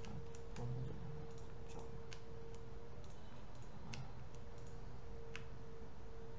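Computer mouse clicking: a dozen or so short, irregularly spaced clicks while a 3D model is dragged and rotated on screen, over a faint steady electrical hum.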